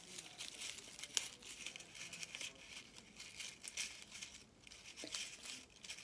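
Shredded paper crinkling and rustling in irregular crackles as it is handled by hand and pushed into a cardboard paper towel tube.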